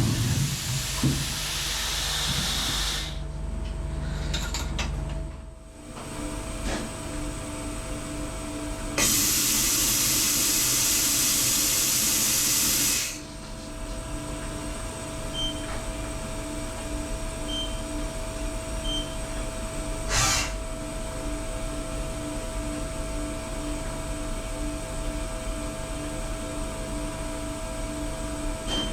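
Mazak VARIAXIS i-800 5-axis machining center running its pallet changer and tool length measuring cycle: a steady machine hum, and a loud blast of compressed air for about four seconds in the middle that cuts off sharply.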